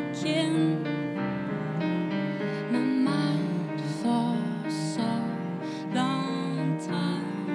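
Live music: chords on a Yamaha digital stage piano with a bowed cello playing sustained notes over them.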